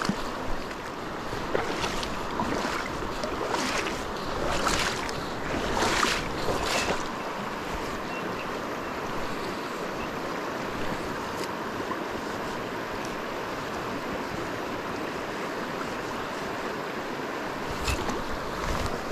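Shallow stony river flowing, a steady rush of water over the riffles, with several brief whooshes in the first seven seconds.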